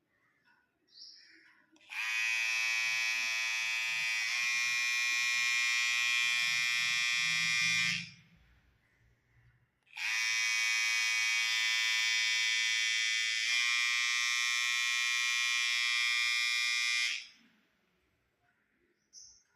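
Electric hair trimmer switched on and running with a steady high-pitched buzz for about six seconds, switched off, then run again for about seven seconds. The tone shifts slightly partway through each run.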